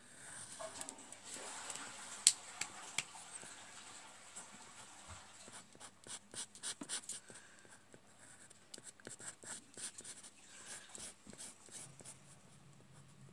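Pencil sketching on paper: scratchy pencil strokes, with a run of quick short strokes in the middle and a single sharp tick about two seconds in.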